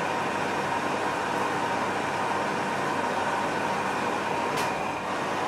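Metal lathe running under power with its four-jaw chuck spinning, a threading bar taking a pass to cut an 11 TPI internal thread; steady machine noise with a faint whine, and one sharp click about four and a half seconds in.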